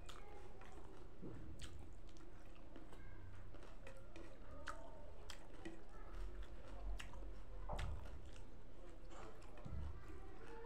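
A person chewing food, with many small irregular mouth clicks and smacks throughout.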